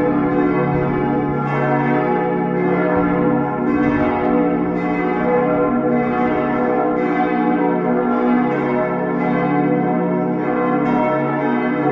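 Full peal of church bells: all the bells in the tower swing at once, their strokes falling over one another without a break in a dense mix of many ringing tones.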